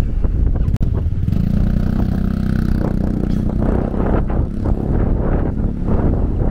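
A motor vehicle's engine running steadily close by, its hum coming in about a second in, with wind buffeting the microphone.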